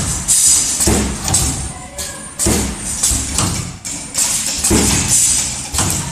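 CNC wire bending machine at work: irregular thumps from the clamp and bending head about every second or so, with bursts of hiss between them.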